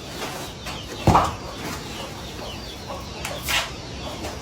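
Chickens clucking, with a loud sudden thump about a second in.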